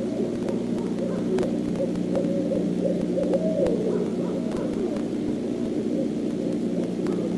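Owls hooting, with wavering calls strongest about halfway through, over a steady low hum.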